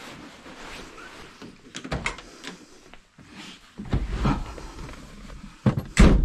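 Car door of a 1988 VW Golf Mk1 Cabriolet being opened and the driver getting in: scattered clicks and a knock, then two sharp thuds near the end, the second and loudest as the door is pulled shut.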